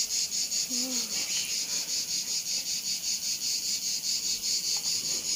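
Insects chirring in a steady, fast, even high-pitched pulse.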